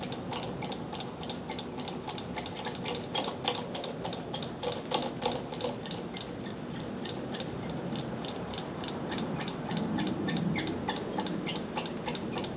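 Rapid, even clicking, about five clicks a second, from a handlebar brake lever and master cylinder being pumped over and over. The pumping builds hydraulic pressure to force seized pistons out of a motorcycle's front brake caliper.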